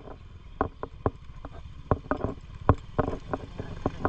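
Motor scooter's small engine running at low speed, with irregular sharp knocks and rattles as the bike jolts over a rough dirt and gravel track.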